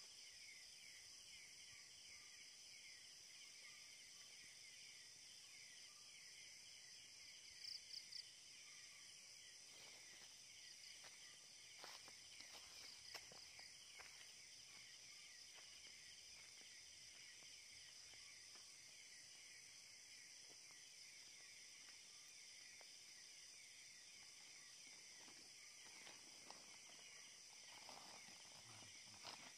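Night insects calling steadily in a rapid, pulsing high trill, faint throughout. Three short high chirps come about eight seconds in, with a few faint clicks and rustles later on.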